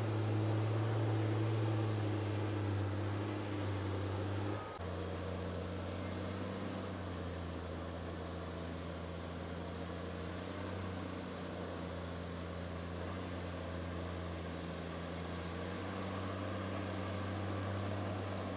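Log skidder's diesel engine running with a steady hum; the hum drops slightly in level and pitch about five seconds in.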